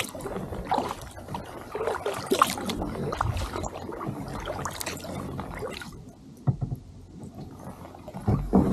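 Kayak paddle strokes in calm, shallow water: the blade dipping and pulling, with small splashes and drips running off it. The strokes pause for a couple of seconds near the end, then the water sloshes again.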